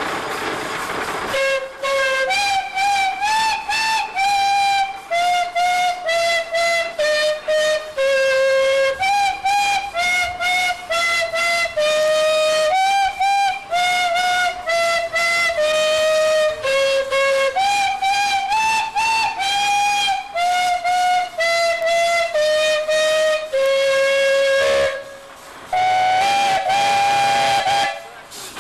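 Steam calliope made from ten antique steam whistles, on a 1914 Huber 25-55 steam traction engine, playing a tune note by note. The tune starts about a second and a half in, after a steady hiss. After a short break near the end, two whistles sound together in a held chord.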